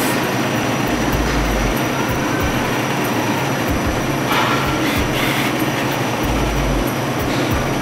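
Steady, loud whirring of ventilation or refrigeration machinery with a low hum, plus two brief low rumbles, about a second in and near the end.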